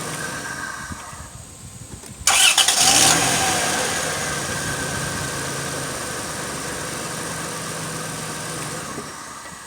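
1998 Dodge Grand Caravan engine starting on a fresh battery: a short crank about two seconds in, then it catches and idles, quieting as the idle settles, before being switched off near the end. The start shows the click-no-start fault was the battery.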